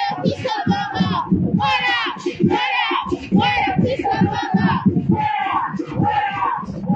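A woman shouting protest chants through a megaphone in quick, unbroken phrases.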